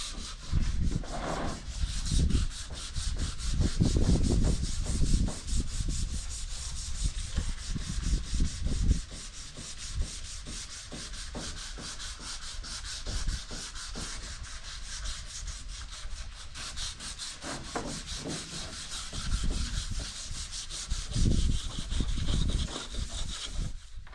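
Sanding: abrasive paper rubbing steadily over a surface in rapid strokes, giving a continuous rasping hiss. Low rumbles and knocks come and go in the first third and again near the end.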